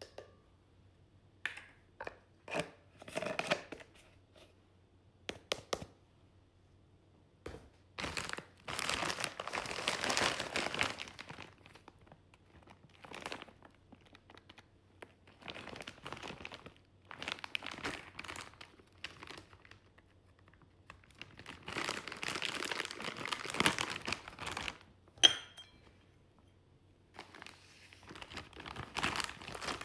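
Crinkly packaging being handled, crumpled and torn open in irregular rustling bursts, with one sharp snap or click near the end.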